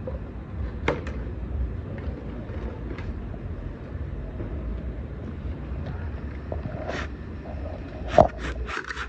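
Wind rumbling on the microphone, with a few light clicks and knocks from a plastic-bottle fruit picker on a pole working among tree branches. Near the end comes a quick cluster of sharper plastic clicks, the loudest about eight seconds in.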